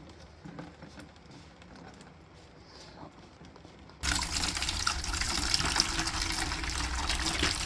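Dirty water gushing out of an opened drain valve on a Burnham steam boiler, starting suddenly about four seconds in after a few faint clicks: the boiler being flushed of its sediment-laden water.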